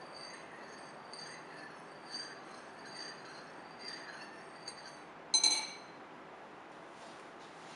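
Metal spoon stirring liquid pectin glazing jelly in a ceramic bowl, ticking lightly against the bowl about twice a second. A little past five seconds in, a loud clink with a short ring as the spoon is set down against the bowl.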